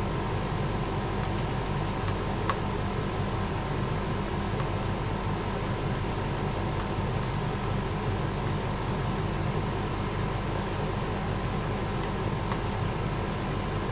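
Room air conditioning unit running: a steady hum and hiss. A couple of faint clicks come about two and a half seconds in and near the end.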